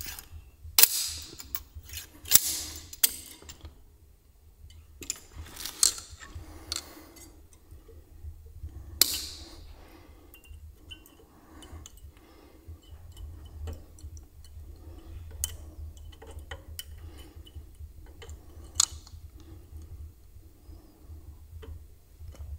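Locking-wire pliers and steel lock wire clicking and ticking as the wire is threaded and twisted through bolt heads on an engine block, with several sharp metallic clicks in the first ten seconds, the sharpest about nine seconds in, then quieter ticking. A steady low hum runs underneath.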